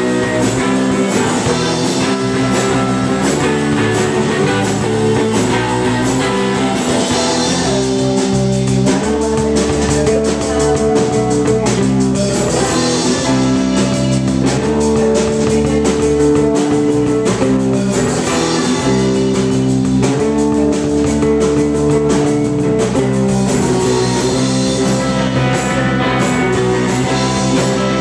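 Live rock band playing loudly: electric guitar and bass guitar over a drum kit.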